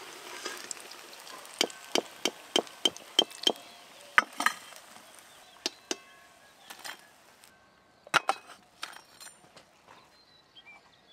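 Metal slotted spoon knocking against a wok and steel plate in a quick run of about seven sharp clinks, roughly three a second, then a few scattered knocks, as fried chops are lifted out of hot oil. Under the first half, the oil sizzles, then it dies away.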